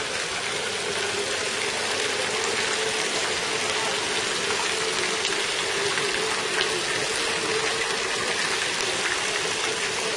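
Fountain jets splashing steadily into their basin, a constant hiss of falling water.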